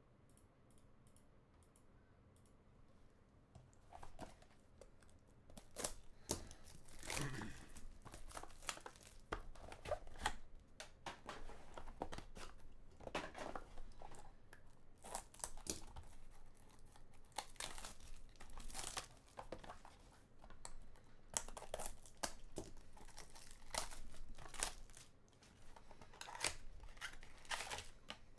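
A trading-card box's packaging being torn open and crinkled, starting about four seconds in: irregular bursts of tearing and crumpling wrapper.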